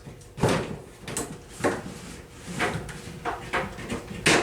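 A run of irregular sharp knocks and clacks, about seven in four seconds, the loudest near the end, like hard objects being handled and set down.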